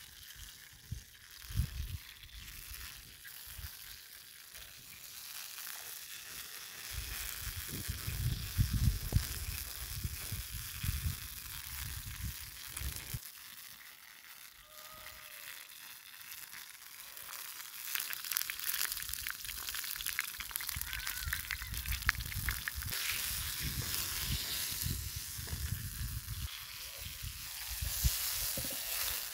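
Pieces of dove meat frying in oil in a small pan over a wood fire, a steady sizzle, with low knocks and rumbles now and then.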